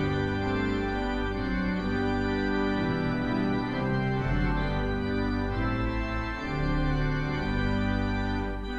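Four-manual, 24-rank Wurlitzer theatre pipe organ playing held chords over a deep pedal bass, the harmony moving every second or so; the deep bass falls away at the very end.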